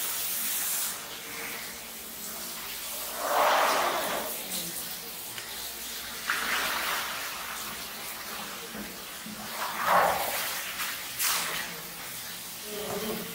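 Water running and splashing onto a wet floor, with several louder surges of splashing.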